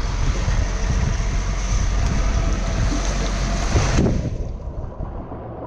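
Wind buffeting the microphone over the rush of water and a boat under way at sea, a loud, even roar. About four seconds in, the hiss cuts off abruptly, leaving a quieter, duller rumble.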